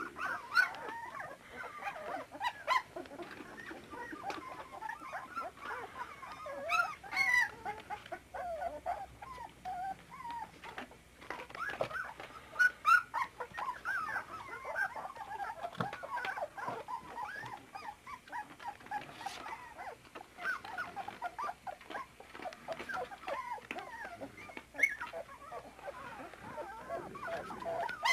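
A litter of 24-day-old puppies whimpering and squeaking, many short wavering cries overlapping one another. A few louder yips stand out, about half a second in, around 7 and 13 seconds, and near 25 seconds.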